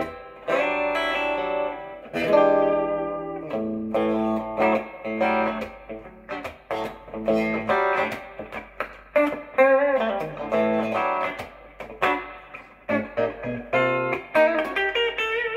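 Harley Benton TE-53 Telecaster-style electric guitar played through a Peavey Classic 30 amp, on the bridge pickup with the tone knob rolled back: a picked riff of single notes and short ringing chords.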